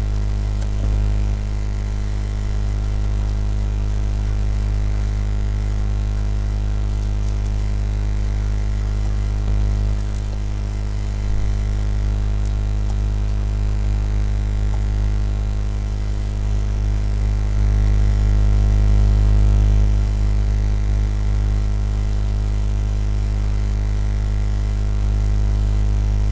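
Steady electrical mains hum with a stack of harmonics, loud and unchanging, picked up by the recording setup.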